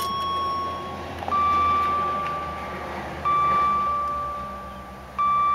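2005 Jaguar S-Type R's dashboard warning chime: a soft bell-like tone that repeats about every two seconds, each ring fading slowly before the next one.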